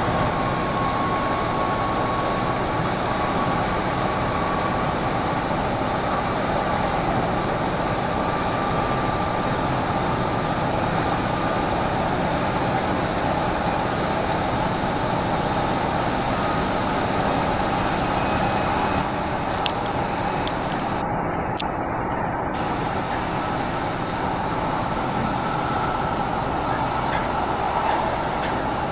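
Steady running noise of a train heard from inside the carriage, with a faint whine that slowly drifts in pitch and a few sharp clicks about two-thirds of the way through.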